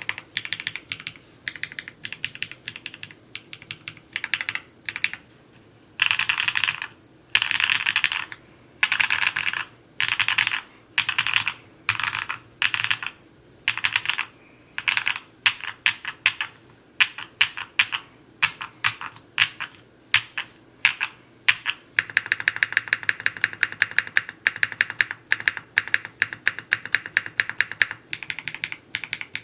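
Typing on a Neo65 Cu mechanical keyboard: keystrokes in quick bursts with short pauses between words, then a fast, even run of keystrokes for several seconds about three-quarters through.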